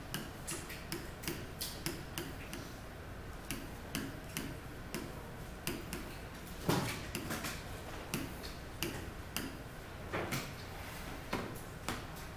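A pen tapping and clicking against the glass of an interactive touchscreen display while numbers are written: light clicks a few times a second, unevenly spaced, with two louder knocks partway through.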